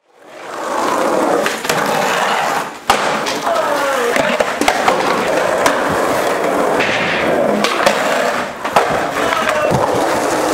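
Skateboard wheels rolling on concrete, a steady loud rumble that fades in at the start. Sharp clacks of the board hitting the ground sound about 3 seconds and 9 seconds in.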